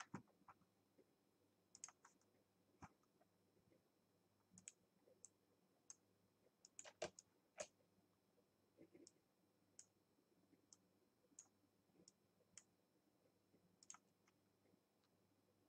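Faint, irregular clicks of a computer mouse, with a quick cluster about seven seconds in, over a faint steady hum. The clicks come as points of a pen-tool path are placed one by one.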